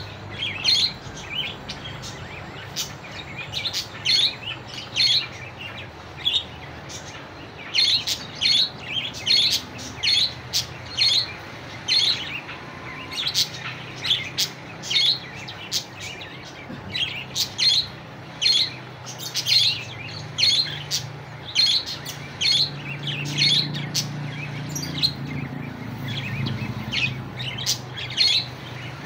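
Caged budgerigars chirping and chattering: a long run of short, high chirps, several a second in bursts with brief pauses between.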